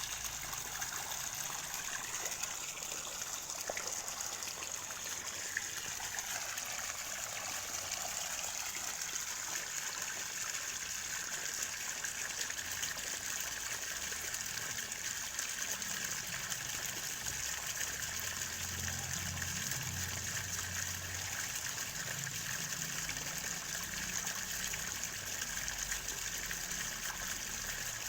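Steady rush of water pouring from the discharge pipe of a 0.5 hp well pump drawing from a newly drilled 30 m bore well.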